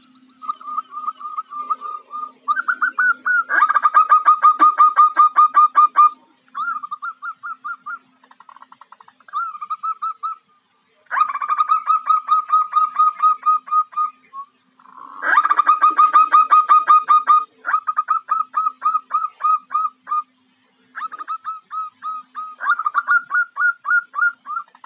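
Female zebra dove (perkutut) calling in fast runs of short repeated notes, in bursts of a few seconds with brief pauses: the female's call that draws males. A faint steady hum lies underneath.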